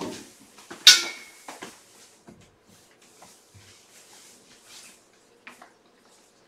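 A sharp, loud clack about a second in, then a few fainter knocks and clicks.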